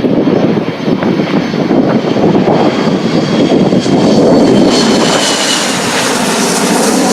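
Jet airliner on approach passing overhead. Its engine whine grows out of heavy wind buffeting the microphone a few seconds in and slides slightly lower in pitch as it goes by.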